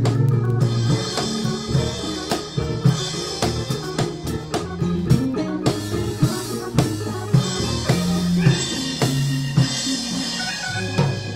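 Live gospel band playing an instrumental passage: drum kit keeping a beat over electric bass, electric guitar and organ.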